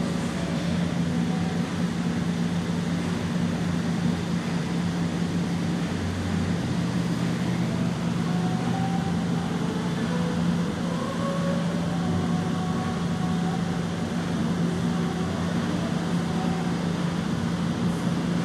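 A steady low mechanical drone at an even level, with faint short tones coming and going above it.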